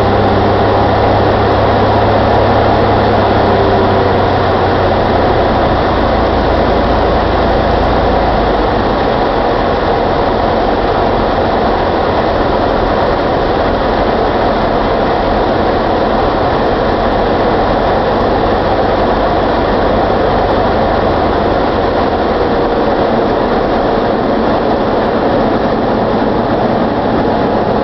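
Cockpit noise of a Thorp T-211 on final approach to land: its Jabiru 3300 six-cylinder air-cooled engine and propeller running, with a steady rush of airflow. The low engine drone eases off about eight seconds in.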